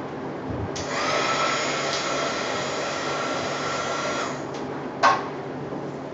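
A small electric blower runs briefly, a steady whirring with a high whine that switches on about a second in and cuts off after about three and a half seconds, blowing across wet pour paint. A sharp click or knock follows about a second later.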